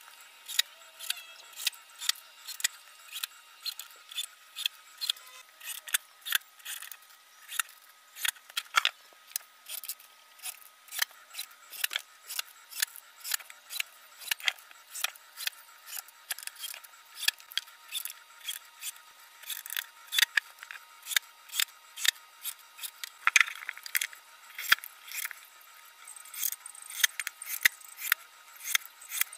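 Screws being driven into plywood: a steady run of sharp clicks, about two a second, that lasts throughout.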